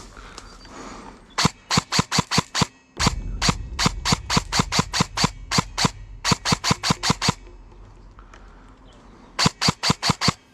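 Airsoft gun firing in four rapid bursts of sharp shots, about six a second, with short pauses between bursts.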